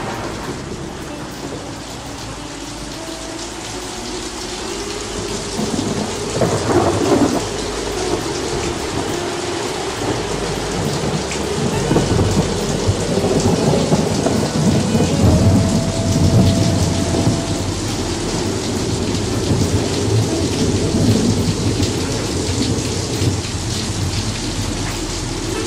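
Steady rain with rolling thunder; the thunder rumbles most heavily about six seconds in and again from about twelve to seventeen seconds in.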